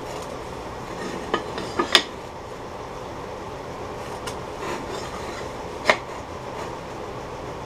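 A metal center-finder template and a square oak board clack lightly on a metal lathe bed as they are shifted while a center line is pencilled across the board. There are three sharp knocks in quick succession a little over a second in, the last the loudest, and one more about six seconds in, over a steady background noise.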